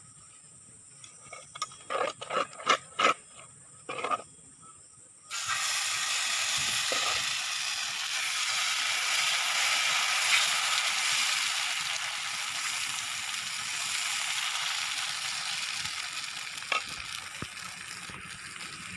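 A few clicks and knocks of utensils, then about five seconds in, a sudden loud sizzle starts as mudakathan dosa batter cooks on a hot griddle, carrying on steadily and easing slightly toward the end.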